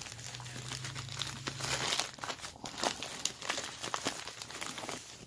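Plastic shipping mailer and its bubble-wrap lining crinkling and rustling as hands pull it open and rummage inside, in a run of irregular crackles.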